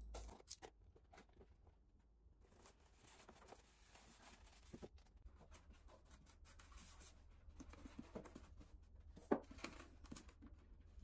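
Faint scraping and rustling as a utility knife cuts the packing tape on a cardboard box and a styrofoam packing insert is pulled out and handled, with a few small knocks and a sharper one about nine seconds in.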